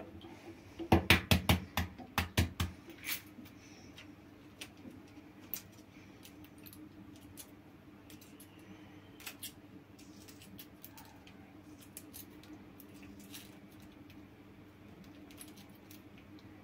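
Hard-boiled eggs cracking against a saucepan, a quick run of sharp knocks in the first few seconds. Then the shells are peeled off by hand, with faint scattered crackles and clicks over a low steady hum.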